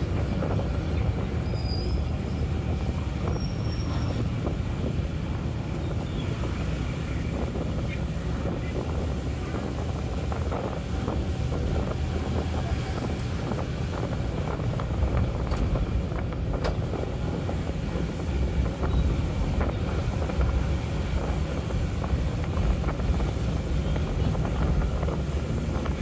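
Road and engine noise inside a moving car: a steady low rumble with a haze of traffic sound and scattered small knocks and rattles.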